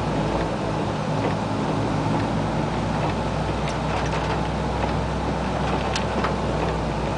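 Cabin noise of a 1988 Isuzu Trooper driving on a wet road: a steady low engine hum under an even hiss of tyres on wet pavement, with a few faint ticks.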